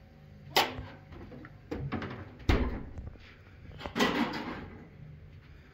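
Refrigerator doors being shut: a series of knocks and clunks, the loudest about two and a half seconds in, followed by another clatter about four seconds in.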